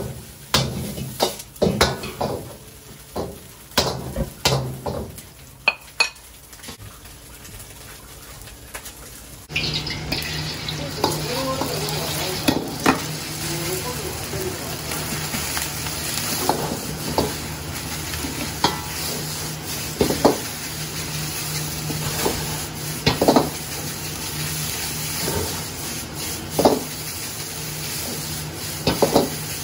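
Fried rice cooking in a wok: a metal ladle repeatedly knocks and scrapes against the wok while rice and egg sizzle. About ten seconds in, the sizzle jumps louder and a steady low hum joins it.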